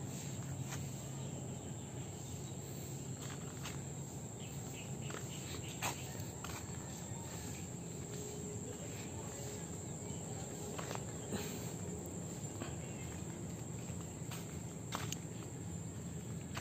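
A steady, high-pitched insect chorus of crickets or cicadas, with a few scattered faint clicks.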